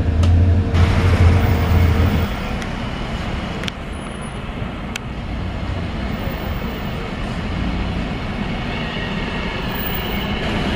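Steady low hum of a moving train for the first two seconds. Then, after a cut, traffic noise at a bus and tram terminus as a rubber-tyred Translohr tram pulls slowly up to the stop among buses, with a thin high whine joining near the end.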